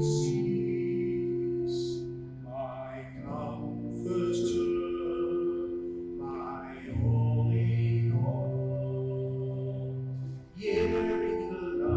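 Music: a slow song, a voice singing over long held chords and a bass line.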